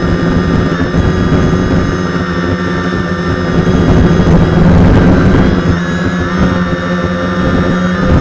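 Quadcopter's electric motors and propellers whining steadily right beside the onboard camera, the pitch dipping and rising a little about a second in and again around six seconds in as the motor speed changes.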